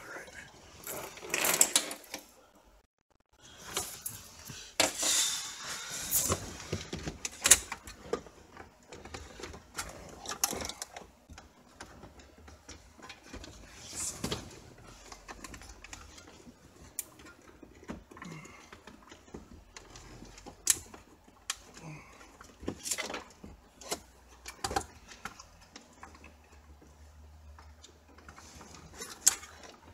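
Scattered plastic clicks, knocks and rustling as hands work under a Ford ZX2's dashboard, prying a trim cover loose.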